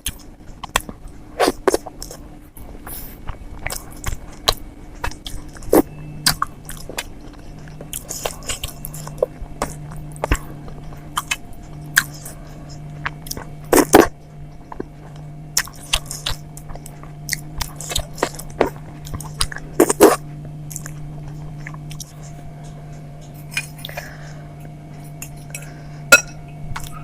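Close-miked chewing and wet mouth clicks of someone eating idli with sambar and chutney, with a few sharper, louder clicks scattered through. A faint steady hum joins in about six seconds in.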